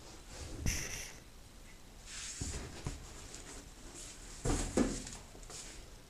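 Clothes being dropped and pushed by hand into a Miele front-loader's drum: irregular rustling of fabric with soft thumps, loudest just under a second in and again around four and a half seconds in.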